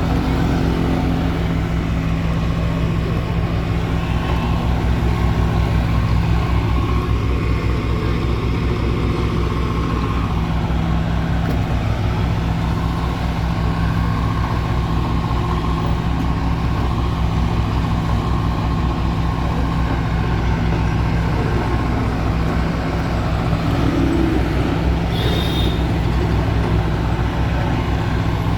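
Diesel engine of heavy construction machinery running steadily at a constant speed.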